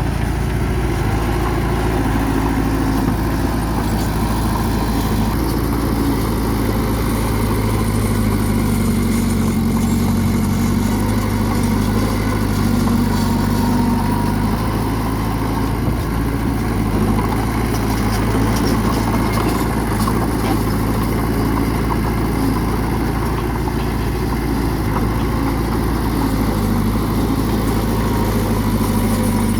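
Bulldozer's heavy diesel engine running steadily and loudly, its pitch shifting slightly up and down as the engine works under changing load.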